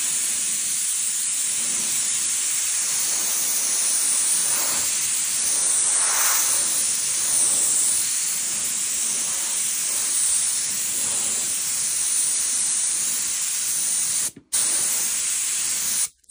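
Compressed-air paint spray gun hissing steadily as it sprays paint onto hanging metal lures. It cuts off briefly near the end, starts again, then stops.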